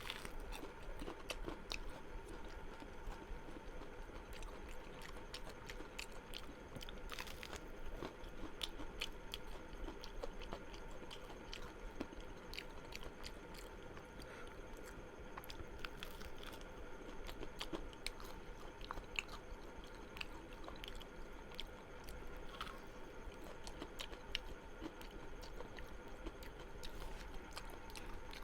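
A person chewing and biting food close to the microphone, with many small scattered clicks and crunches.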